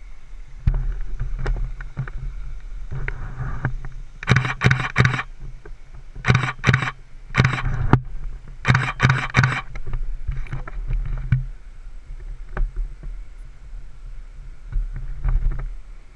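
A vehicle engine running with a steady low hum. Through the middle it is joined by a string of loud, irregular crunching noises.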